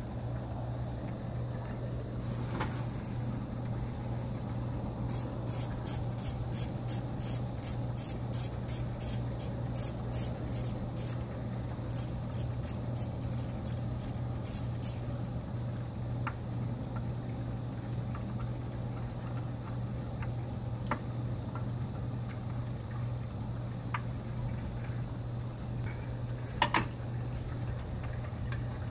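Socket ratchet clicking in quick runs of strokes as a 10 mm bolt is worked loose, over a steady low hum. A couple of sharp metal clinks near the end.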